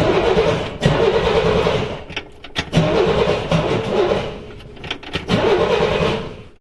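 Car engine being turned over by its starter motor, cranking with a fast, uneven chugging rhythm. The level dips twice, and the sound stops just before the end.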